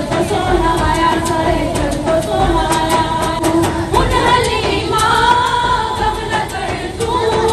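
Female voices singing a naat, the devotional chant of a milad gathering, in long wavering phrases over a steady beat of sharp ticks.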